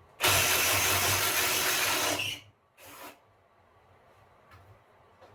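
A handheld power tool runs hard for about two seconds, stops, and gives a second short burst about half a second later.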